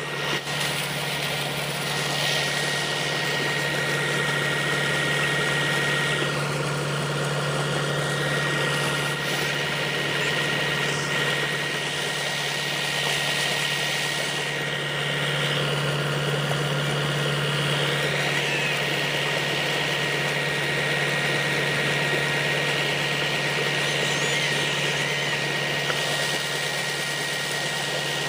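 Tractor engine running steadily, driving a tubewell turbine pump, with muddy water gushing from the discharge pipe into a pit.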